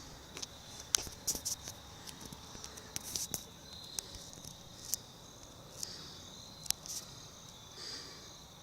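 Faint scattered clicks and rustles over a faint, steady high-pitched tone.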